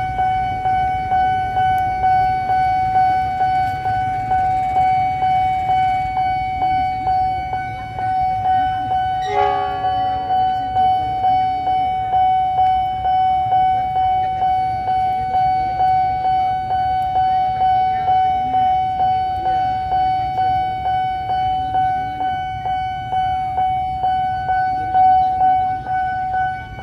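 Railway level-crossing warning alarm sounding a steady pulsing tone, about one and a half pulses a second, as a diesel train approaches. A locomotive horn blasts briefly about nine seconds in, over a low engine rumble.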